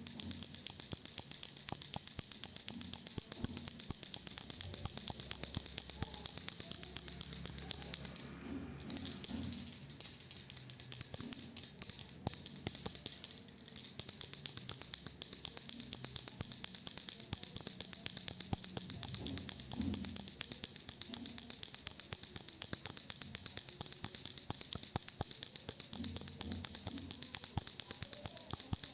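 Pooja hand bell (ghanti) rung continuously and fast, a steady high ringing. It breaks off for a moment about eight and a half seconds in, then carries on.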